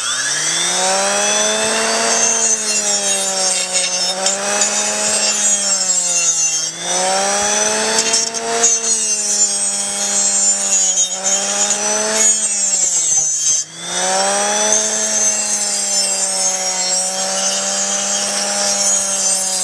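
Variable-speed grinder sharpening a steel lawn mower blade: the motor spins up in the first second, then runs at full speed with a hissing grind. Its pitch dips briefly every few seconds as the blade is worked forward and back across it.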